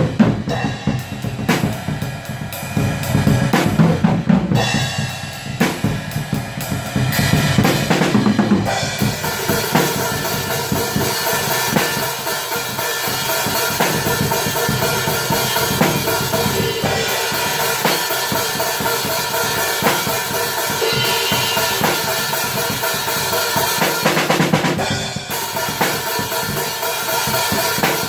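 Atmospheric black metal music: rapid drumming with bass drum and snare under a dense wall of sound, which fills out about nine seconds in.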